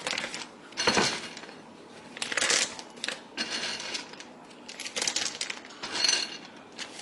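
Plastic vacuum-sealer bag crinkling and rustling in short, irregular bursts as it is handled and food is put into it.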